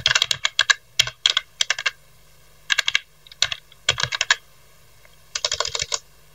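Computer keyboard typing in about six short bursts of rapid keystrokes, with pauses between them.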